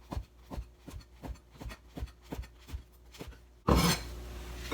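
Kitchen knife cutting deep-fried tofu (aburaage) into strips on a cutting board: steady knocks of the blade on the board, about three a second. Near the end comes a short, louder scraping noise.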